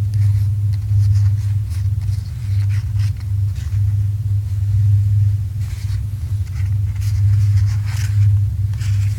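A steady low rumble runs throughout and is the loudest sound. Over it come scattered short rustles and scrapes of cards and packaging being handled.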